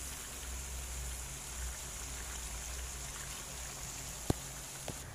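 Chicken pieces sizzling steadily in butter in a metal pan, over a low steady hum. A sharp click sounds about four seconds in, and a fainter one shortly after.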